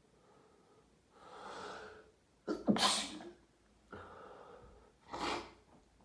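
A person sneezing twice in a sneezing fit after a hot shower, each sneeze preceded by a gasping intake of breath. The first sneeze, about two and a half seconds in, is the louder; the second, near the end, is shorter.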